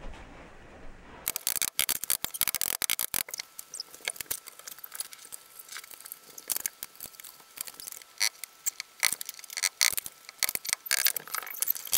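Fast-forwarded sound of assembling an IKEA Hemnes daybed by hand: a dense, rapid run of high-pitched clicks, taps and squeaks from screwdriving and handling the panels. It starts abruptly about a second in.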